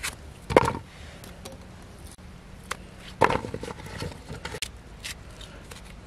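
Slices of peeled daikon radish dropped into an aluminium pot, each landing with a knock. The loudest knocks come about half a second in and about three seconds in, with lighter clicks and knocks between.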